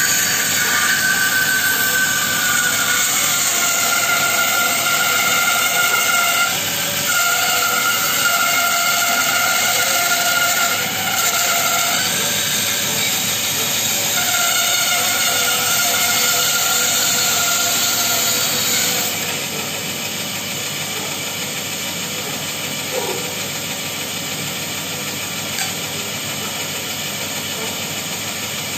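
Bandsaw blade cutting through a thick hardwood blank: a loud steady hiss of the cut with a high tone that wavers and breaks now and then as the wood is fed. About two-thirds of the way through the cutting stops and the saw runs on more quietly.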